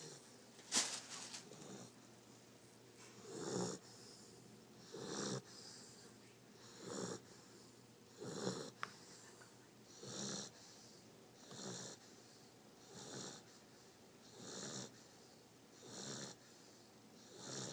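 A sleeping puppy snoring, one snore about every one and a half seconds, ten in all. A brief sharp noise, the loudest sound here, comes just under a second in.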